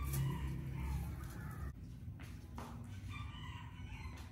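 A rooster crowing, a drawn-out call of over a second, with another call about three seconds in.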